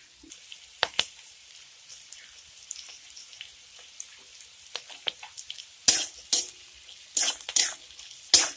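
Metal spatula scraping and knocking against a metal kadai while stirring vegetables, cashews and raisins frying in ghee and oil, over a faint sizzle. The strokes are sparse at first, then come loud and quick, about six of them, in the last few seconds.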